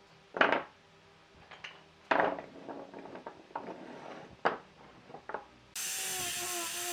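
Hard objects knocking and clinking together a few times, with the loudest knocks about half a second and two seconds in, then several lighter ticks. Near the end a steady hissing noise starts abruptly.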